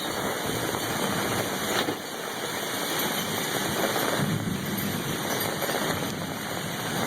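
Torrential rain pouring down in a steady hiss.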